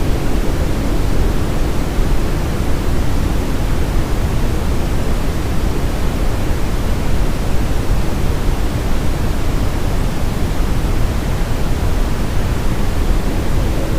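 Steady brown noise, strongest in the low end, running evenly without breaks.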